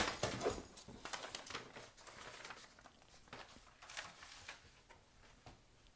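Small objects being handled and put back into a box: light rustling and scattered soft knocks, loudest at the start and fading to faint handling noise.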